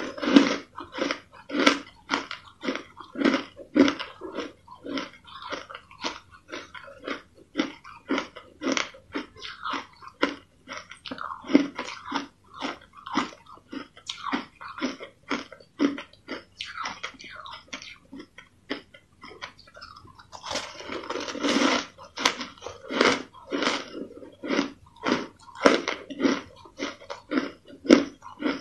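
Purple-flavoured crushed ice being bitten and chewed: a steady run of crisp crunches, about three a second, with a bigger, denser crunch about two-thirds of the way through.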